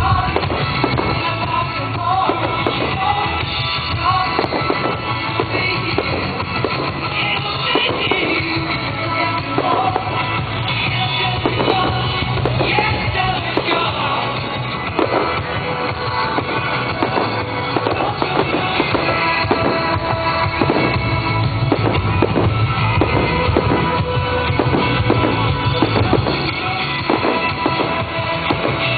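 Fireworks display: aerial shells bursting with many bangs in quick succession, over a song played loud for the show.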